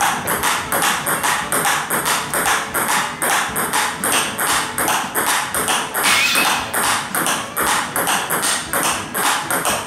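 Table tennis rally: a quick, even run of sharp clicks as the ball strikes the paddles and bounces on the table. The backhand strokes are played with thick-sponge Fastarc G1 MAX rubber.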